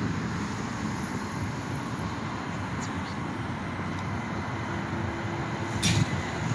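Steady low rumble of city street traffic, with a short sharp click about six seconds in.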